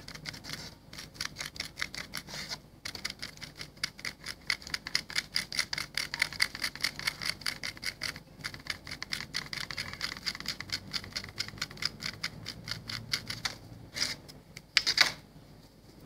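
Small hand tool scraping and scratching at a soft stone surface in quick, short strokes, several a second, with a couple of brief pauses and a longer, louder scrape near the end.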